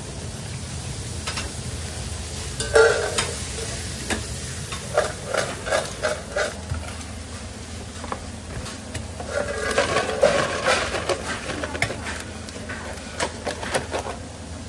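Sweet potato fries tossed and stirred in a stainless steel bowl, clattering against the metal in several bouts, over a steady low hum.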